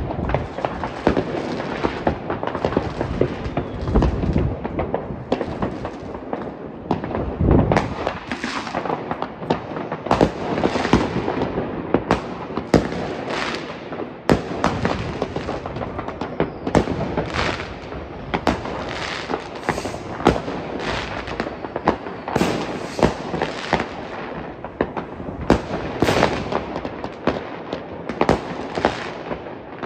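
Many fireworks going off at once all around: a dense, unbroken run of bangs and crackles, with heavier booms about 4 and 7½ seconds in.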